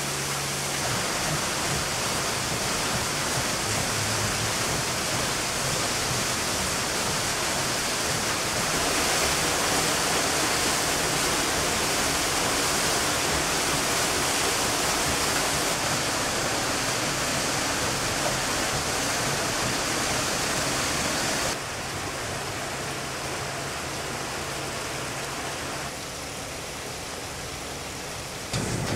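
Rushing water of a watermill: water pouring from above onto the buckets of the overshot wheel and falling down the stepped mill race. A steady rush that drops in level suddenly twice near the end.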